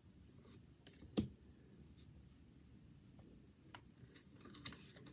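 Quiet handling of trading cards and their wrapper: a few faint clicks and taps, the clearest about a second in.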